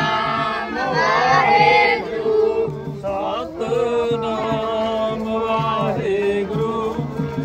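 Sikh devotional singing: voices chanting a melodic hymn together over a steady musical accompaniment.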